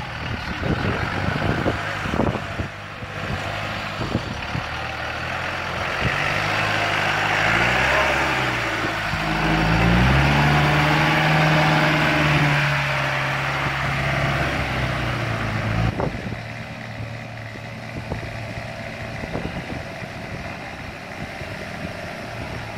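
Land Rover Defender 110's turbodiesel engine working hard as it climbs out of a rut and drives close past, its pitch rising and then held steady. About two-thirds of the way through it cuts off abruptly, leaving a quieter, rougher engine sound.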